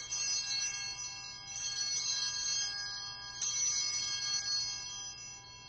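Altar bells rung at the elevation of the chalice during the consecration: a cluster of bright ringing tones, struck again about three and a half seconds in, then fading out near the end.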